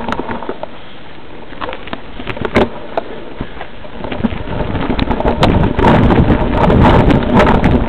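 Mountain bike rolling over a rough dirt trail: tyres on dirt and stones with the bike rattling, a few knocks at first, then louder, denser clatter from about halfway through.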